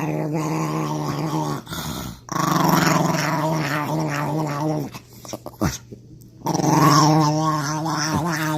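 A dog vocalizing in three long, wavering, drawn-out calls, with short breaks between them.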